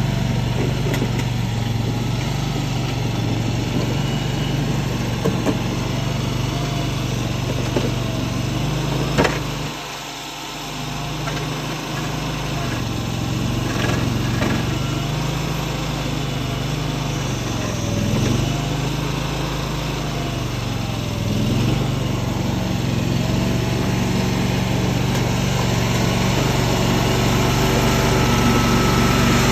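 Tracked mini skid steer's small engine running steadily, its note dropping briefly a few times, first about a third of the way in and twice more later. A sharp click comes just before the first drop.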